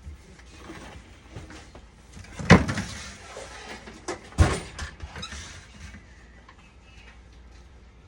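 Objects being handled and set down: two sharp clunks about two seconds apart, the first the louder, among lighter clicks and rustling.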